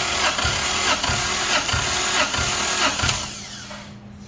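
Starter cranking a Toyota JZ-series inline-six with its spark plugs out for a compression test on cylinder six: the engine turns over in an even, rhythmic beat without firing. The cranking stops about three seconds in, leaving a steady low hum.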